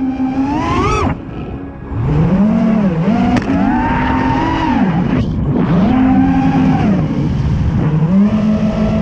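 FPV freestyle quadcopter's brushless motors whining, the pitch rising and falling with throttle. The sound drops away briefly about a second in and again around five seconds in, where the throttle is chopped, then climbs back.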